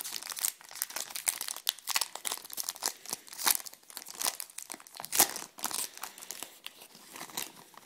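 Baseball trading cards and their pack wrapping being handled. There is irregular crinkling and rustling with quick flicks and taps as the cards are sorted through.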